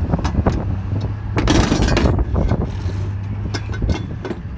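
Steel dolly parts being handled and pulled apart: scattered metallic knocks and clicks, with a longer scrape about one and a half seconds in. A steady low hum runs underneath.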